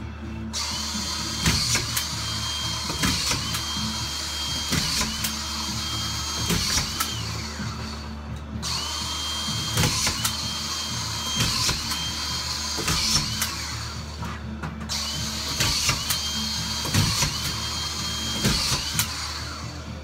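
Cordless drill driving screws through plasterboard into the ceiling joists. It makes short runs of about a second to a second and a half each, a dozen or so in three groups, and the whine rises, holds and drops off with each screw. Sharp clicks come between the runs.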